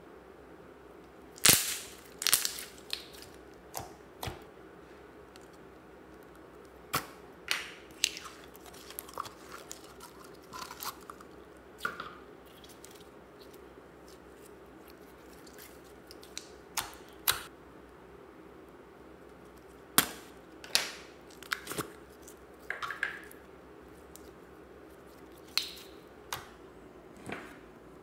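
Mixed slime being squeezed, stretched and pressed by hand, giving irregular sharp pops and wet clicks, loudest about a second and a half in and again a little past the middle.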